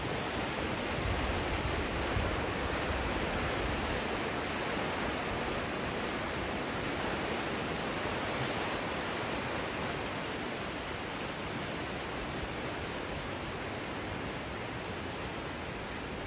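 The Indus River in high flood, its fast, muddy water rushing with a steady, even noise.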